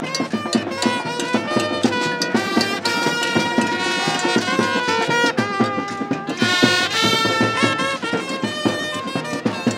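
Music with a steady percussion beat and held horn lines.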